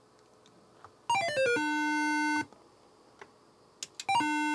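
Short electronic keyboard music cue: a quick descending run of notes settling on a held tone, then near the end a brief rising pair of notes and another held tone.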